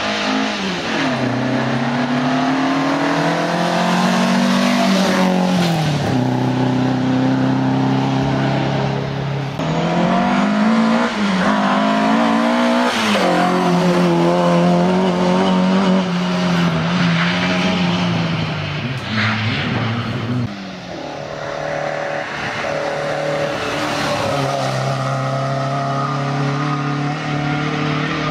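Ford Escort Mk1 rally cars driven hard on a stage: the engine revs climb and drop sharply at gear changes several times, holding steadier near the end.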